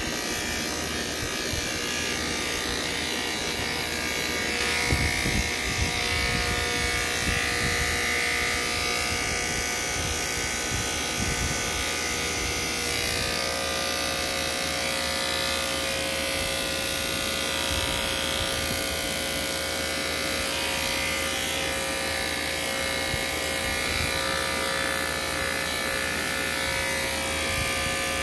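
Corded electric hair clippers buzzing steadily as they cut through hair.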